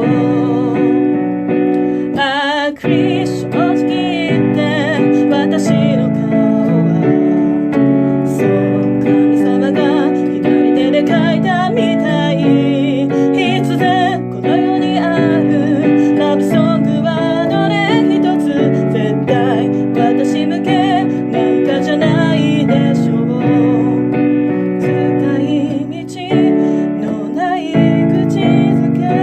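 A voice singing with vibrato over chords played on an electronic keyboard. The sound drops away briefly twice, a few seconds in and near the end.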